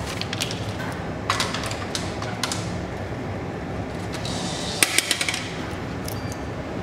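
A banknote being handled and fed into a cash payment machine: scattered paper and plastic clicks, then a short hiss and a quick cluster of sharp clicks about five seconds in as the note goes into the slot.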